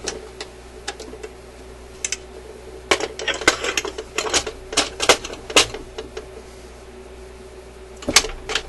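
Sharp clicks and clacks of plastic and metal as a record player's turntable platter is set down over the spindle and changer mechanism and the tone arm is handled, with a dense run of clicks a few seconds in and another short cluster near the end, over a steady hum.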